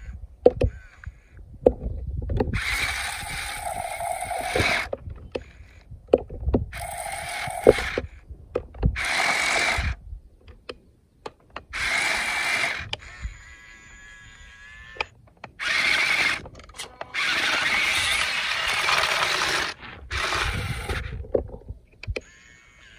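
Electric drive motor and plastic gearbox of an RC toy dump truck whirring in repeated bursts of one to three seconds as its wheels spin in wet mud. Short clicks and knocks fall between the bursts.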